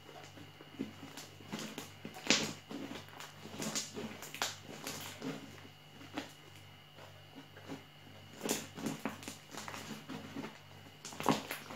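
Fluffy slime made with shaving foam being squeezed and kneaded by hand: irregular squishes and little clicks of trapped air, loudest a little after two seconds, at about eight and a half seconds and near the end.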